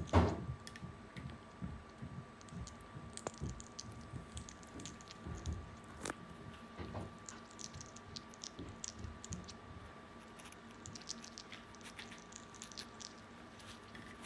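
Small parrot crunching and nibbling food with its beak: scattered soft clicks and crunches. A faint steady hum from an air purifier runs underneath, and a knock sounds right at the start.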